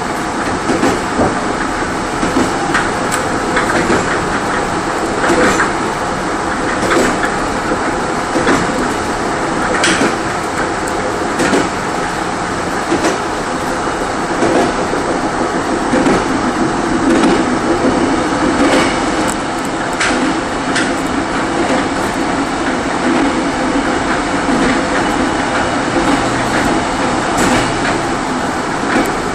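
Running noise of a Korail Mugunghwa-ho passenger train heard from inside its last coach: a steady rumble of wheels on rail, with clicks over the rail joints every second or two.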